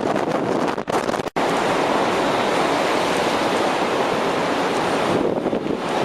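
Storm surf breaking heavily with strong wind buffeting the microphone, a dense steady rush of noise. The sound drops out briefly twice about a second in, then settles into a smoother continuous wash of surf before the wind gusts pick up again near the end.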